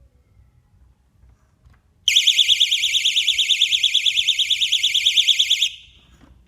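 Burglar alarm siren sounding a loud, high-pitched, fast-warbling electronic tone that starts suddenly about two seconds in and cuts off after about three and a half seconds.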